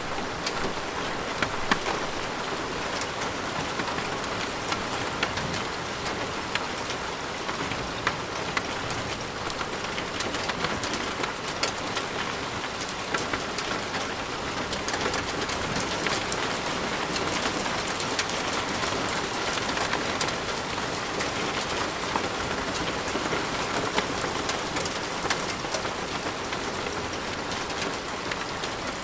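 Steady heavy rain, full of sharp individual drop hits; it starts abruptly.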